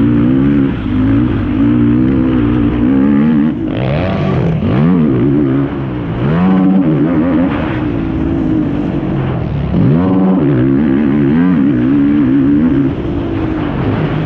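Yamaha YFZ450R quad's single-cylinder four-stroke engine under racing throttle, revving up and falling back repeatedly as the throttle is worked and the gears are changed, with several sharp drops and re-climbs in pitch.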